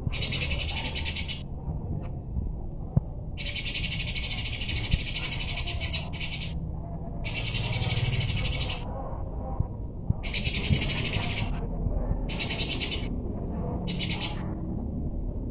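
Eurasian tree sparrows chattering rapidly in the harsh calls of a fight. The chatter comes in bursts of about half a second to three seconds with short gaps between them, over a low steady background rumble.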